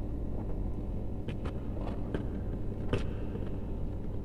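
Electrical wire being handled and pushed into a plastic junction box, giving several light clicks and taps between about one and three seconds in, over a steady low background rumble.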